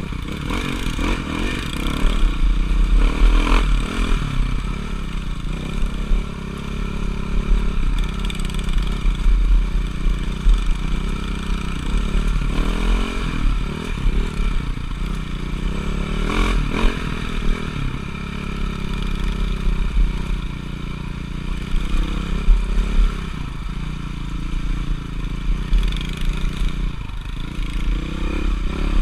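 Motocross dirt bike engine running under changing throttle, its pitch rising and falling, with a few sharp knocks.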